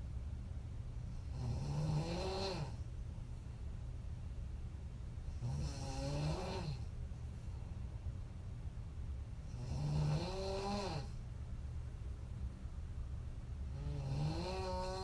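A woman snoring hard in deep sleep: four snores about four seconds apart, each a pitched rasp that rises and then falls, over a steady low hum.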